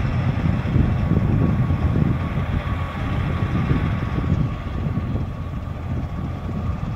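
Tractor engine running steadily under load as its front-mounted reaper binder cuts wheat, an uneven low rumble with a thin steady whine above it.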